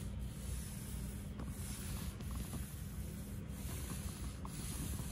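Paint roller spreading wet white primer back and forth over a countertop: a steady rubbing hiss with a faint mark at each stroke, about once a second.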